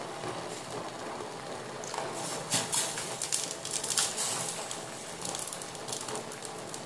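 Orange hard candies dropped by hand into sugar syrup heating in a stainless steel pot: small plops and clicks, bunched between about two and four and a half seconds in, over a steady hiss.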